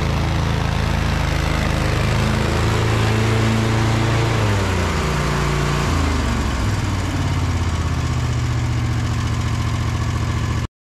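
Husqvarna V554 stand-on mower's engine running close by, its note sliding downward through the middle as the mower comes to a stop, then running steadily. The sound cuts off suddenly at the very end.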